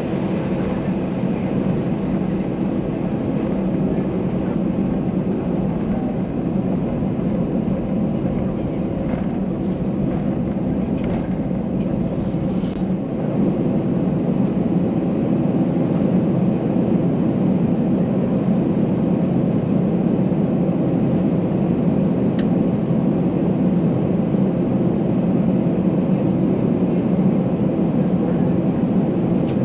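Inside the cabin of an Airbus A320-214, its CFM56 turbofan engines running at taxi thrust: a steady hum and rush that gets a little louder about halfway through.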